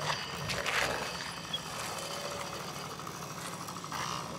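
Sur-Ron electric dirt bike running through a wheelie, its motor and chain giving a steady whir with tyre noise on asphalt.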